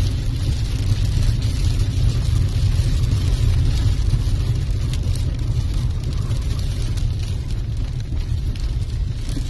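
A car driving at speed: a steady low rumble of road and wind noise with a hiss on top, easing slightly in the second half.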